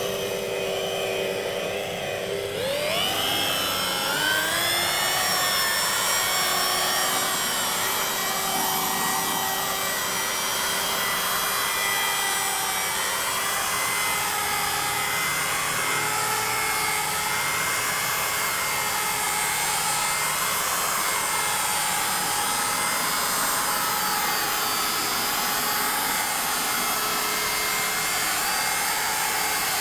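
Electric rotary polisher with a twisted wool mop, compounding a sanded GRP gelcoat panel. It starts at low speed, and its whine rises as it speeds up a few seconds in. It then runs steadily, the whine wavering gently as the mop is worked over the panel.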